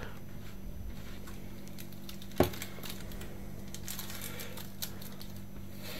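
A single knock about two and a half seconds in, as a metal baking tray is set down on a wooden table, followed by faint crinkling of baking parchment, over a steady low hum.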